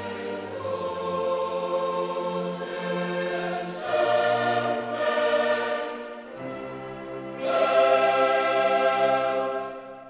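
Choral and orchestral music: a choir singing long held chords that change every couple of seconds, swelling louder partway through and fading away near the end.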